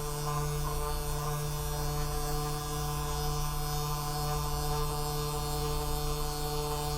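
Handheld electric vibration massager running with a steady, even hum, used to relax the muscles before adjusting.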